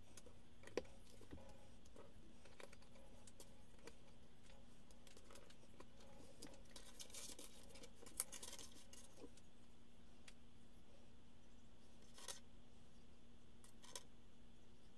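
Faint clicking and rattling of loose plastic Lego bricks as hands sift through a pile of pieces on a wooden table, with a few sharp clicks and a longer stretch of rummaging in the middle.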